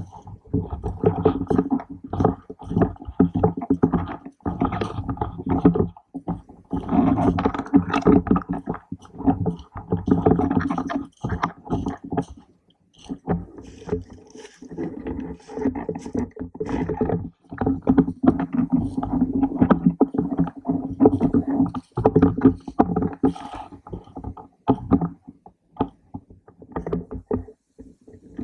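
Close handling and movement noise from a camera mounted on an airsoft rifle: irregular rustling, scraping and knocking as the player moves, with many short sharp clicks.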